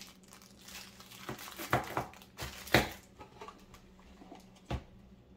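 Plastic bags and cardboard packaging crinkling in irregular bursts as parts are dug out of a box by hand, with a single sharp click near the end.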